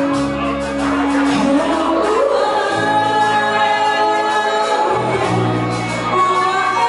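Live band performing a pop-rock song: two female singers sing into microphones over electric guitar, bass and drums.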